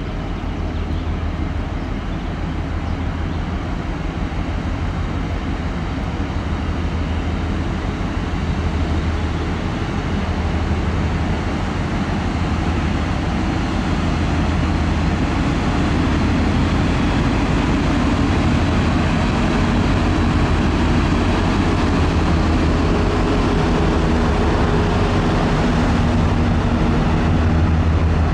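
Cruise ship ASTORIA's engines giving a steady low rumbling drone, growing gradually louder as the ship comes closer beneath.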